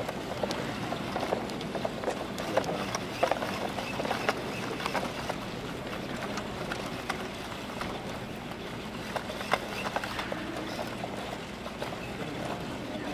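Aldebaran Nao humanoid robots stepping and shuffling on a carpet field: scattered, irregular light clicks and taps over a steady background noise.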